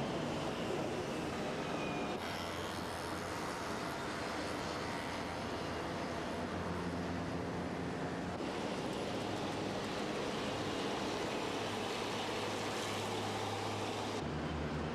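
Electric commuter train running: a steady rumble and hum that changes abruptly about two, eight and fourteen seconds in.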